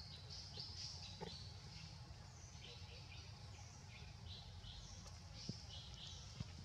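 Faint, high chirping calls repeating irregularly, several a second, over a low steady rumble, with a few soft clicks.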